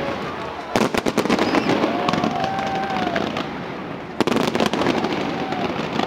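Large fireworks display going off in rapid volleys of bangs and crackling. Dense clusters of reports come about a second in and again about four seconds in, with steady crackle between them.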